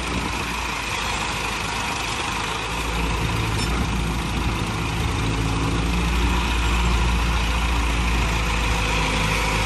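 Diesel engines idling steadily: a Massey Ferguson 385 tractor and a Hitachi excavator, whose arm is swinging.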